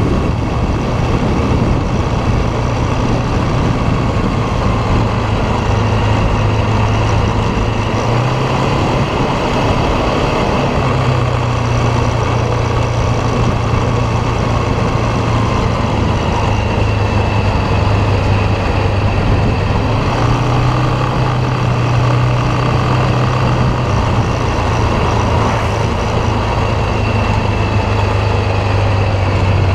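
ATV engine running steadily under way, its pitch stepping up and down a little as the throttle changes, over a constant rushing noise.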